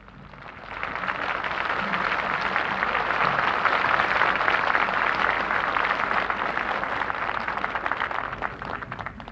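Large crowd applauding: a dense clatter of many hands that swells up within the first second, holds for several seconds, and dies away near the end.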